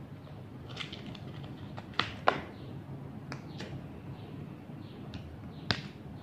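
A cigarette lighter clicking as a cigarette is lit: two sharp clicks about two seconds in, a few softer clicks, and another sharp click near the end.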